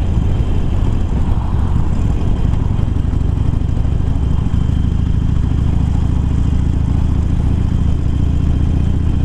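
Harley-Davidson Sportster Iron's V-twin engine, fitted with a 1200 upgrade kit and Screamin' Eagle slip-on exhausts, running steadily under way at road speed with a deep, even note.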